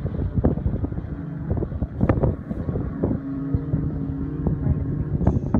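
Distant jet ski engines running at speed, a steady low drone through the middle, partly buried under gusty wind buffeting the microphone.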